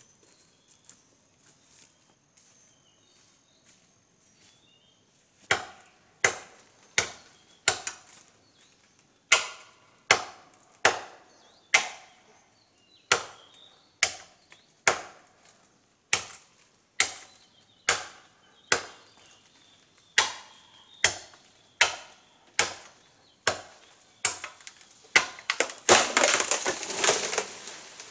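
A machete chopping into a bamboo stem: about thirty sharp, hard chops, one to two a second in short runs with brief pauses, starting about five seconds in. Near the end a louder, longer crackling and rustling crash, the cut bamboo giving way and falling through the leaves.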